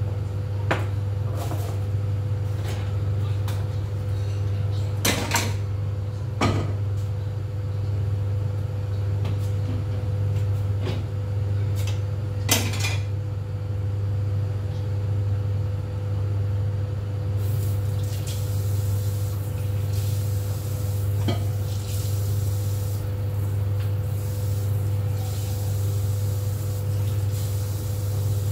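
Dishes and utensils clinking and knocking at the counter, a handful of separate strokes, over a steady low hum. About two-thirds of the way in, a steady hiss joins and continues.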